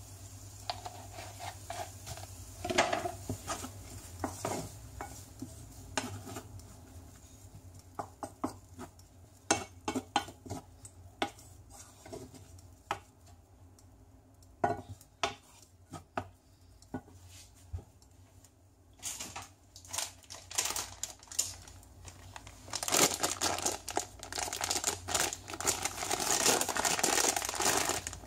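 Wooden spatula knocking and scraping against a frying pan as rice is stir-fried: a run of irregular clicks and taps. In the last five seconds or so, a plastic food packet crinkles as it is handled.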